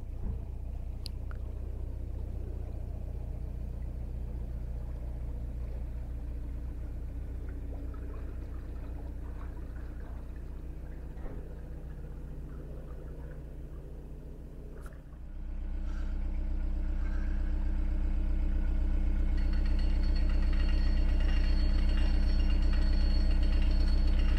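A narrowboat's diesel engine running steadily as the boat cruises along the canal. About 15 s in it becomes suddenly much louder and closer, and a thin high whine joins it a few seconds later.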